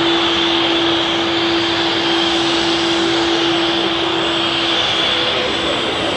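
Airbus A321neo XLR's twin turbofan engines running as the airliner rolls slowly along the runway: a steady jet whine with a high tone, and a low hum that fades out about five seconds in.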